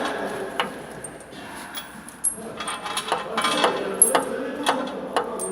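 Engine running with sharp metallic knocks, irregular and about two a second, the knocking of a worn piston.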